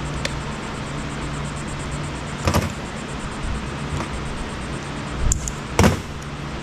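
Hand tools clacking against an electronic unit as it is taken apart for scrap. There are three sharp knocks, one about two and a half seconds in and two close together near the end, over a steady low hum.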